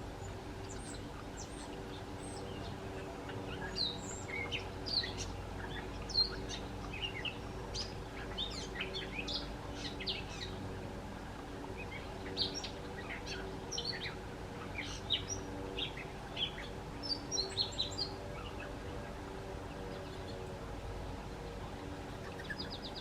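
Small birds chirping outdoors: many short, sharp chirps and calls, scattered and densest in the middle, fading out a few seconds before the end. A steady low mechanical hum runs underneath.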